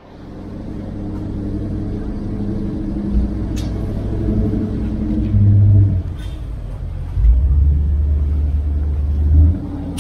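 Passenger ferry's engine droning low and steady, swelling louder twice.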